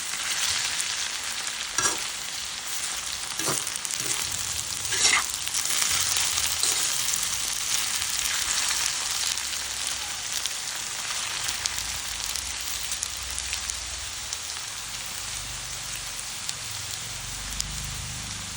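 Potato fries deep-frying in hot oil, a steady sizzle, with a few sharp knocks in the first seven seconds.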